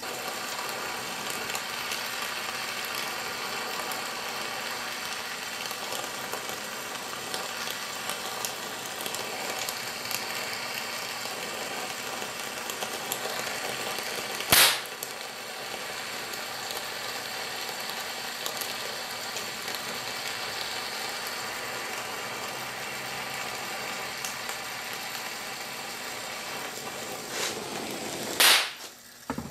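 Gas torch flame hissing steadily as it heats a hot-rolled steel rod clamped in a vise, bringing it up to bending heat. Two sharp, loud knocks cut through, one about halfway through and one near the end.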